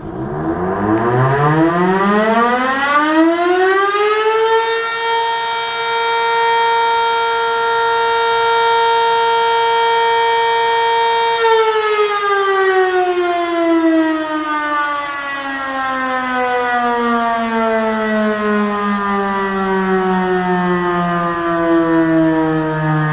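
Darley Champion single-tone chopper siren winding up from a standstill over about four seconds, holding one steady tone for about seven seconds, then winding down slowly, its pitch still falling at the end. It is sounding the short curfew alert.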